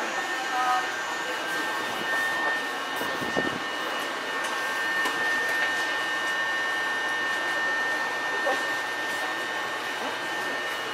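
Steady hum of an Eizan Electric Railway train, an even noise with a high, steady whine, a few faint ticks and a low thump about three and a half seconds in.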